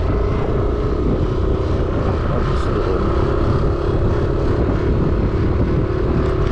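Motorcycle engine running at a steady cruise, a constant hum under heavy wind rumble on the microphone from riding.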